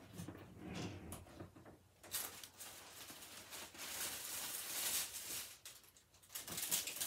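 Rummaging through craft supplies to fetch foam circle rounds: a few light clicks and knocks, then a rustle of handled items, with sharper clicks near the end.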